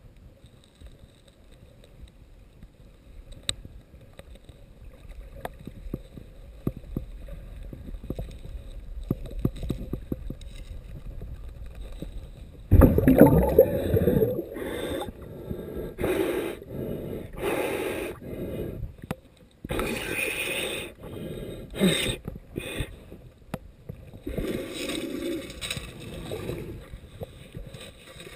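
Underwater digging with a sand scoop, heard through water: a low, muffled rumble at first, then from about 13 seconds in a run of loud, irregular gurgling and scraping bursts as the scoop works through the sand and shells.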